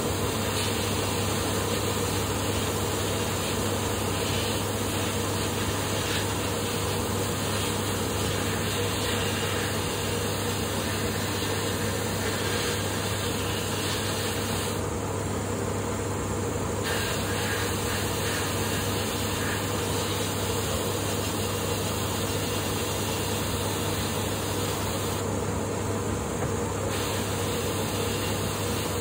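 Abrasive blasting in a sandblast cabinet: a steady hiss of compressed air and grit, over the even hum of an air compressor running. The hiss thins briefly twice, about halfway through and near the end.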